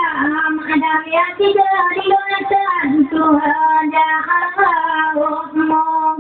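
A woman's high voice singing a slow, ornamented melody with long held notes that waver and slide between pitches, unaccompanied.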